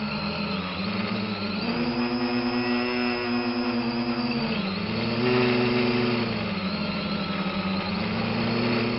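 Small engine running steadily, its pitch sagging and picking up again a couple of times, like a lawnmower engine under changing load.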